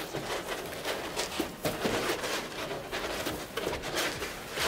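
Packaging being handled: a cardboard box and its styrofoam inserts scraping, rubbing and knocking in a run of short, irregular noises.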